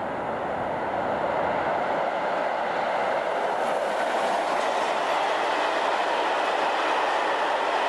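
Freight train hauled by an electric locomotive passing close by: a steady rumble of wheels on the rails, growing louder over the first couple of seconds and then holding as the wagons roll past.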